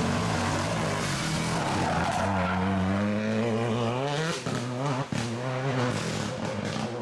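Renault Clio R3T rally car's turbocharged four-cylinder engine pulling hard as it drives past, its note rising as it accelerates, then cutting off briefly twice, about four and a half and five seconds in, before pulling again.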